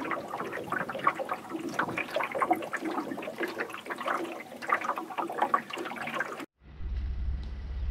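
Water splashing and gurgling, with many small clicks and knocks. About six and a half seconds in it cuts off abruptly, and a steady low hum follows.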